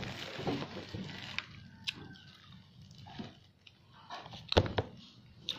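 Close-up chewing and mouth sounds with scattered small clicks, and one sharper knock about four and a half seconds in.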